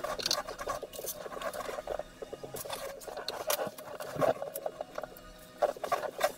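Gloved hands working at a panel: fast, light scratching and ticking with scattered sharper clicks, a cluster of clicks near the end.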